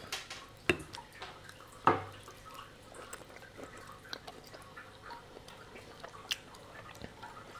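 A few scattered sharp clicks and taps of a fork against a ceramic plate as a steak in sauce is cut, the strongest about two seconds in, with quiet between them.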